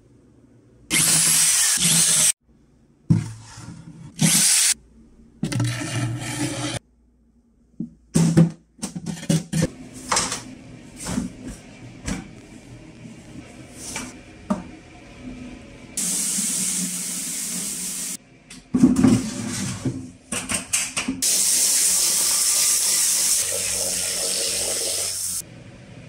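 Several short runs of an electric drill, then knocks and rustling of clothes being handled in a plastic bucket, then water running into the bucket in two long stretches in the second half.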